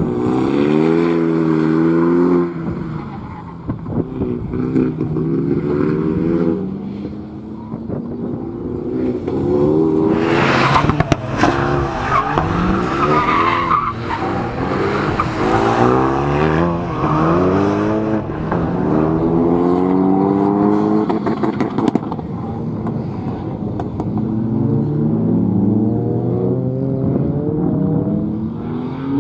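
Renault Mégane RS's turbocharged four-cylinder engine revving hard and dropping back again and again as the car is driven fast through a cone course. The tyres squeal loudly from about ten to fourteen seconds in.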